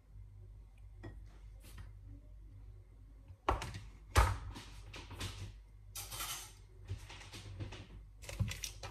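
Kitchen handling noises: a run of knocks and clatters with rustling, starting after about three quiet seconds, the loudest a sharp knock about four seconds in.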